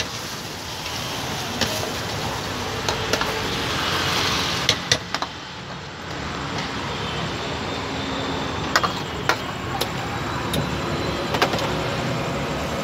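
Steel ladle and spoon knocking and clinking against a steel cooking pan and serving plate, a dozen or so short sharp knocks, over a steady background rumble and hiss of street traffic.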